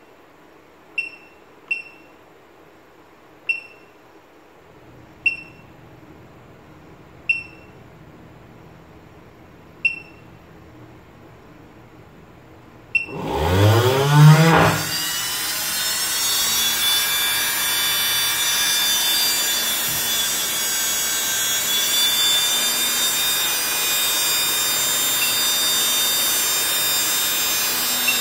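Six short beeps from the bench power supply's keypad as its buttons are pressed. Then, about 13 seconds in, a small brushed DC motor spins up with a quickly rising whine and runs on steadily with a high whine, fed about 5 A from the supply in constant-current mode.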